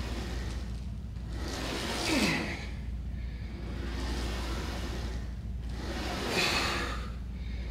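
A man breathing hard as he strains through reps: two long, forceful exhalations about four seconds apart, the first ending in a short falling grunt, over a steady low hum.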